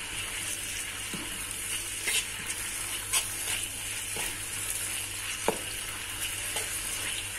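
Sliced shallots, garlic and ground red chili paste sizzling in hot oil in a wok while a metal spatula stirs them, with a few sharp taps and scrapes of the spatula against the pan.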